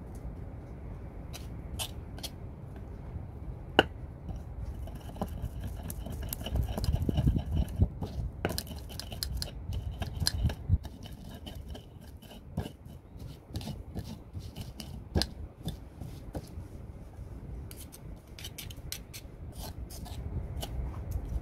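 Stone pestle crushing and grinding chopped ingredients in a shallow stone mortar: irregular scraping, with sharp knocks of stone on stone.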